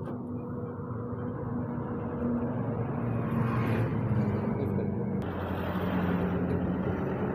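Steady rumble of motor traffic with a low engine hum, swelling slightly midway.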